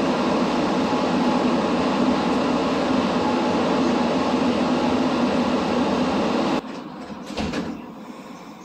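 Steady in-cabin running noise of a rubber-tyred Montreal Metro train moving through a tunnel, a loud even rumble. Near the end it cuts off abruptly to much quieter cabin sound, with one brief louder noise shortly after.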